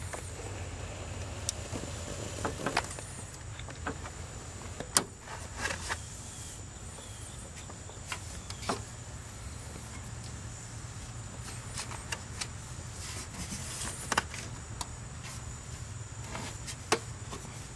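Scattered clicks, taps and knocks of hands working around the plastic radiator fan shroud and its wiring in the engine bay, over a steady low hum and a faint high whine.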